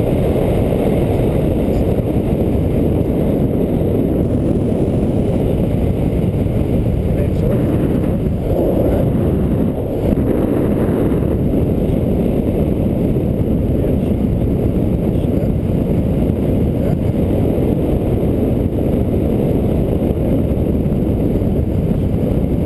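Wind rushing steadily over the microphone of a camera carried in paraglider flight, a dense low rush with no breaks.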